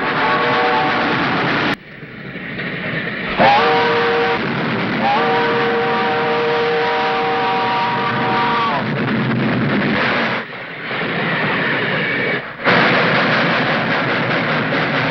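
Steam locomotive running hard, its chime whistle sounding several notes at once: a blast ending just after the start, then a short blast, then a long one that slides up at the start and sags at the end. The running noise breaks off abruptly a few times.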